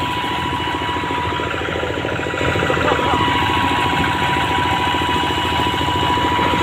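Single-cylinder diesel engine of a two-wheel hand tractor running under way, a fast, steady train of thumps. It grows a little louder about two and a half seconds in.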